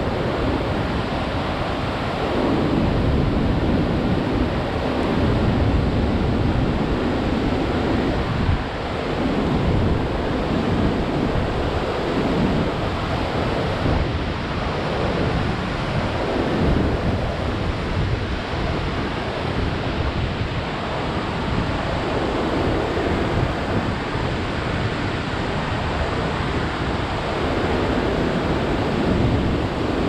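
White water of a river waterfall and rapids, swollen with snowmelt, rushing in a steady roar, with irregular low rumbling swells that come and go.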